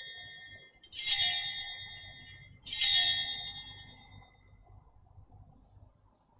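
Altar bells rung at the elevation of the chalice, marking the consecration: the last of an earlier ring fades, then two more bright rings come about a second in and a little before the middle, each dying away slowly.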